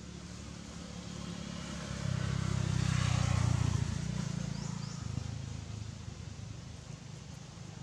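A motor vehicle passing by: its engine rumble swells for a couple of seconds, then fades away.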